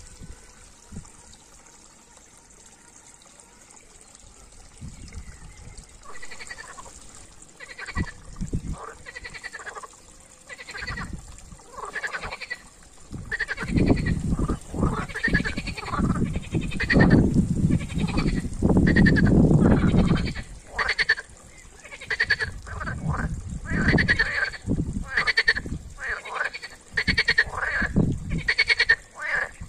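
European green frogs (water frogs) calling in a chorus of quick, repeated pulsed croaks, starting about six seconds in and going on densely. A low rumbling runs under the calls, loudest in the middle.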